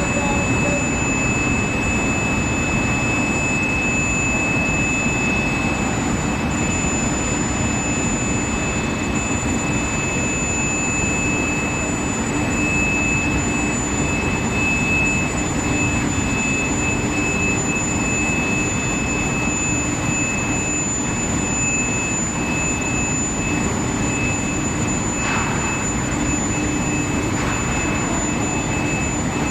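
Induction quenching and tempering furnace line for steel bar running: a steady industrial hum and rumble with two steady high-pitched whines on top.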